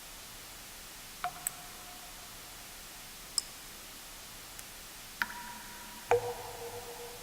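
Water drips falling one at a time at uneven intervals over a steady white-noise hiss: about six sharp plinks, several ringing briefly with a pitched tone. The loudest comes about six seconds in and rings on.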